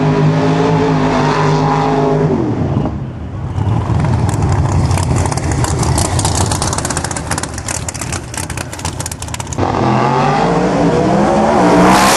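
Top Sportsman Camaro drag car's V8 held at high revs through a burnout, dropping about two and a half seconds in to a rough, crackling run at lower revs. About ten seconds in the engine revs up again with a rising pitch as the car accelerates down the track.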